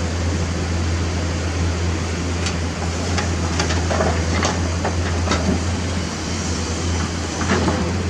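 Diesel engine of heavy earthmoving machinery running steadily with a deep hum. Scattered short metallic clanks and knocks come through it from a few seconds in.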